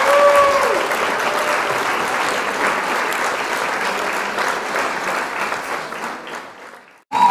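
Crowd applause sound effect, a dense clapping with a few short whistle-like cries near the start. It fades out about six seconds in, stops briefly, then starts again at full level right at the end, as a looped clip.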